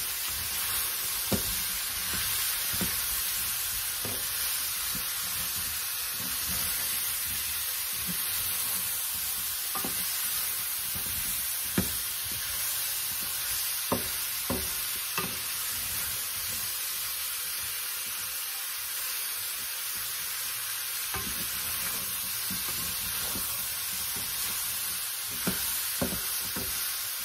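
Thin steak, onion and bell pepper chunks sizzling steadily as they are sautéed in a pan, with a wooden spoon stirring and now and then knocking against the pan.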